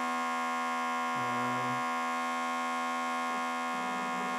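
Small vacuum pump of a pick-and-place machine running with a steady hum, holding a picked-up SMT component on the needle. About a second in, a brief lower tone joins it as the stepper-motor axes move the needle.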